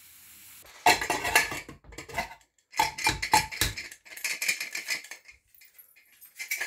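Steel lid of a stovetop pressure cooker being unlocked and lifted off the pot, with repeated metal clanks and scrapes.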